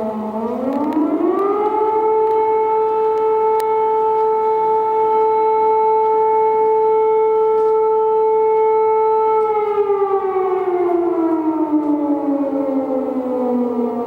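Civil defence siren wailing. Its tone rises over about a second and a half, holds steady for about eight seconds, then slowly winds down in pitch over the last four seconds.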